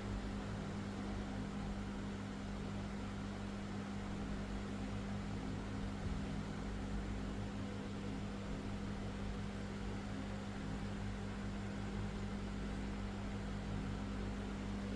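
A steady mechanical hum with a constant low tone.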